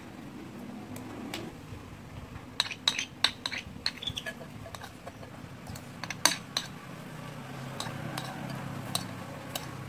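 Metal spoon clinking and scraping against a ceramic rice bowl while scooping rice. There is a run of sharp clinks starting a couple of seconds in, and the loudest comes a little past the middle.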